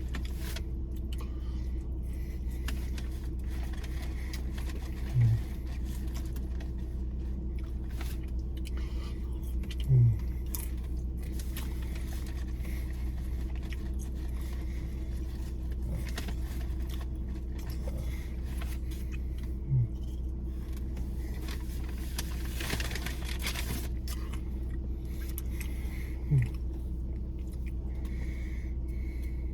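Steady low hum inside a car's cabin with the engine running. Four short low sounds stand out over it, and there is a brief rustle a little past the middle.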